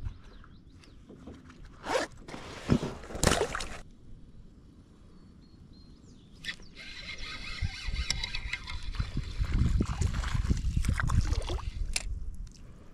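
Spinning reel being cranked, its gears and bail giving a steady fine whirring as a small fish is reeled in to the kayak. Before it, a couple of brief swishing scrapes about two and three seconds in, and a low rumble builds under the reeling.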